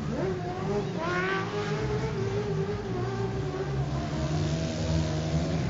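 Land Rover Discovery TDI's four-cylinder turbodiesel engine pulling under load as it comes off a steel ramp and drives away. The revs rise briefly near the start and again about a second in, then hold steady.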